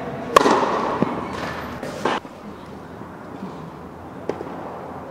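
Tennis balls struck by rackets in an indoor tennis dome: a few sharp, separate hits, each followed by a short echo.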